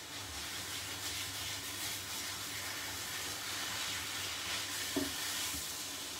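Braising steak sizzling steadily as it browns in a hot frying pan, with a brief knock about five seconds in as tongs turn the pieces.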